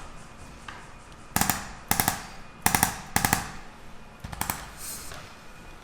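A series of about six sharp, rattling knocks at uneven intervals, each a quick cluster of clicks.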